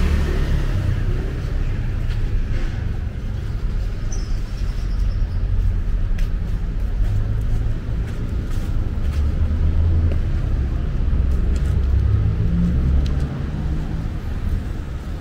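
Road traffic on a city street: cars passing close by, under a heavy, uneven low rumble.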